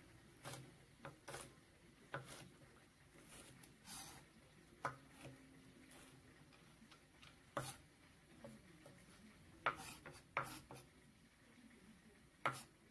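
Chef's knife chopping sweet pepper on a wooden cutting board: about a dozen faint, irregularly spaced knocks of the blade striking the board.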